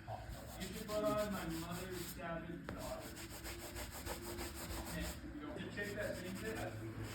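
Drywall trowel scraping and rubbing across wet joint compound on the wall as the texture is worked, a continuous scratchy friction sound with a few short squeaks from the blade.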